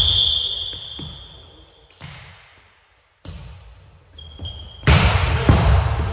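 A referee's whistle blows once at the start, a single sharp volleyball hit follows about two seconds in, and near the end the rally brings louder ball contacts and sneakers squeaking on the gym floor.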